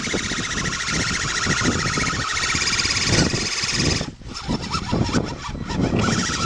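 RC crawler's electric motor and gears whining under load, the pitch wavering, with noisy low rumbling underneath; the whine drops out about four seconds in, then returns weaker.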